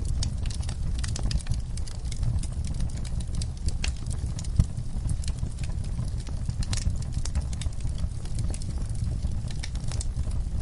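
Wood campfire crackling: many irregular sharp pops and snaps from the burning wood over a steady low rumble.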